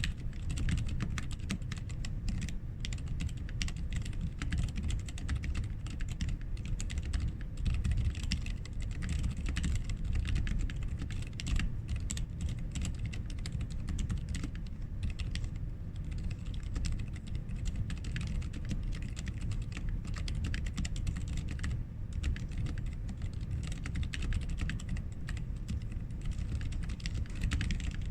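Continuous fast typing on a Sentraq S-60X mechanical keyboard with lubed Zeal Healios linear switches and clipped, band-aid-modded stabilizers: a dense, unbroken stream of keystroke clicks with a deep thud at each key bottom-out.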